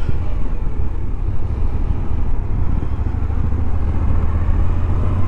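Moto Guzzi V85TT's air-cooled transverse V-twin running steadily under way, a continuous deep rumble.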